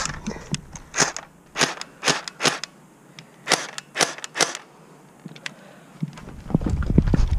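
Airsoft gun firing single shots: about eight sharp cracks at uneven intervals over the first four and a half seconds. From about six seconds in, quick thumping footsteps and rumble take over.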